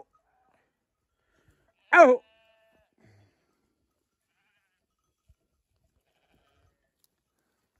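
A sheep bleats once, briefly, about two seconds in, just after the tail end of another bleat at the very start; otherwise almost nothing is heard.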